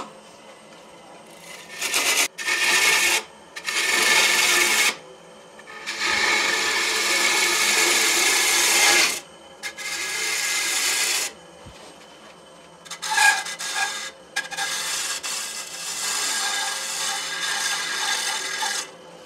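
Wood lathe running with a tool or abrasive pressed against a spinning maple platter in about six passes, each a rasping hiss lasting one to four seconds. Between the passes the lathe's steady hum can be heard.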